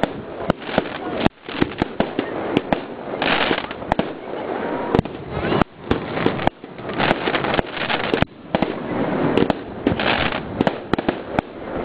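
Aerial fireworks bursting in quick succession: many sharp bangs a second over a continuous crackling, swelling louder twice.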